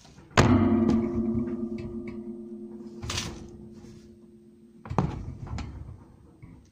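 A sharp knock sets something ringing with a low, pitched tone that fades slowly over about four seconds, until a second knock cuts it off; a few lighter clicks follow. Wood shavings rustle briefly under a hand in between.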